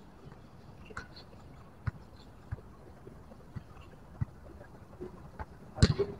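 A football being kicked back and forth: about five dull thuds of foot striking ball at uneven intervals, the loudest near the end.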